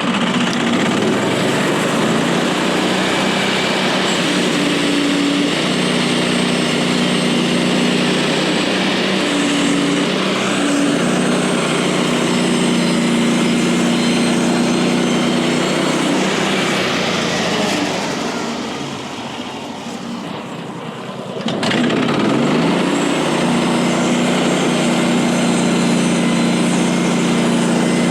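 Small gasoline engine of a portable bandsaw mill running steadily under load. About 18 seconds in the sound drops quieter for a few seconds, then comes back up to full level.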